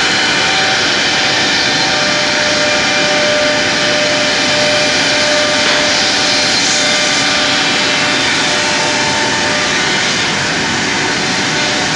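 Woodmaster WM-5x2CNC mortising machine and its workshop dust extraction running steadily: a loud, dense rushing machine noise with a few faint steady whining tones over it.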